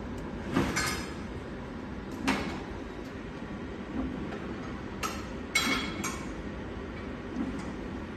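Factory automation machine running: a steady mechanical hum broken by sharp, irregular clacks, several a few seconds apart.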